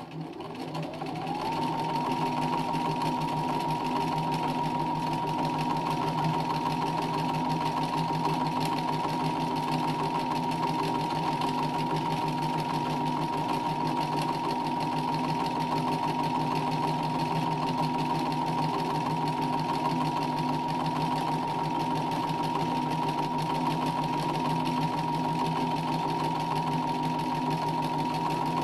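Domestic sewing machine stitching free-motion embroidery at speed. The motor winds up over the first second or two, then runs at a steady high speed.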